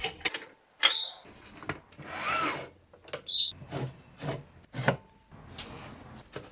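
Wooden parts being handled by hand: a string of short knocks and scrapes, with one longer rubbing scrape about two seconds in.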